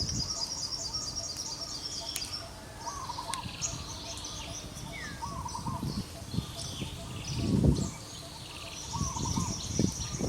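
Birds singing and chirping: high twittering phrases over a lower warbled call that repeats every few seconds. Low rustling runs beneath, with a louder rustle about seven and a half seconds in.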